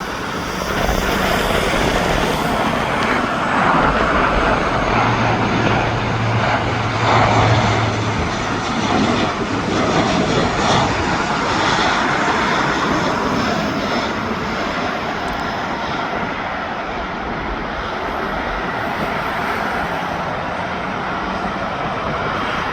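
Lockheed C-130J Hercules's four Rolls-Royce AE 2100 turboprop engines running as the aircraft comes in on its landing approach, loudest in the first half and slowly fading after.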